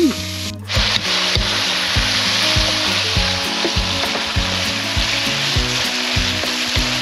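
Cubed goose breast meat sizzling as it fries in hot oil in a frying pan, stirred now and then with a wooden spatula.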